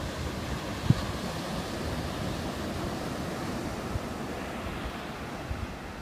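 Ocean surf breaking and washing up a sandy beach, a steady rush, with wind buffeting the microphone and a brief low thump about a second in.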